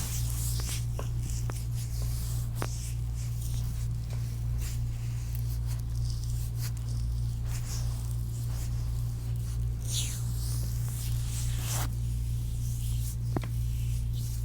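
Hands massaging a bare foot, heard close up through wrist microphones: intermittent swishing rubs of skin, with a few small clicks near the start and one near the end, over a steady low electrical hum.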